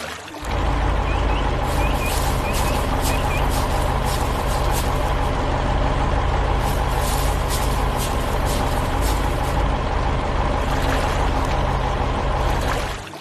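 Heavy construction vehicle's engine running steadily, starting about half a second in and cutting off near the end, with a few faint chirps and clicks in the first few seconds.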